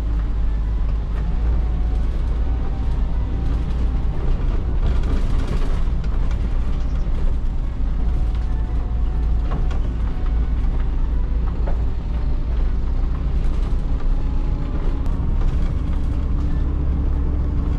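Inside a route bus driving slowly on a gravel track: a steady low diesel engine drone, with frequent rattling and creaking from the bus's body panels and fittings.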